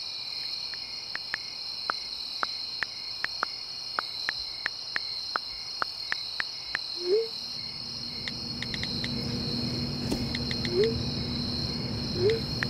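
Night insect chorus: a steady high-pitched trill with sharp ticks every half second or so. There are a few short rising chirps, and a low hum comes in about halfway through.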